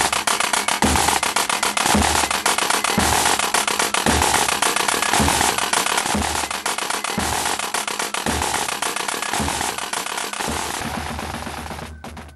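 Music with a slow, uneven drum beat, buried under loud crackling hiss. The sound fades near the end and then cuts off.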